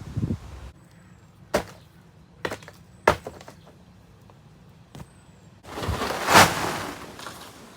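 Sharp knocks and thuds, about five spread over the first five seconds, then a louder scraping rush that swells about six seconds in and fades.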